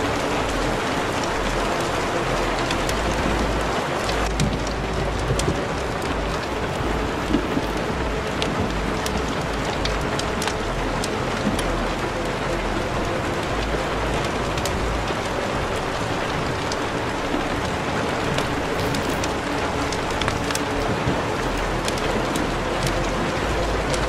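Steady rain-like noise: an even hiss with many faint scattered ticks and a low rumble that comes and goes.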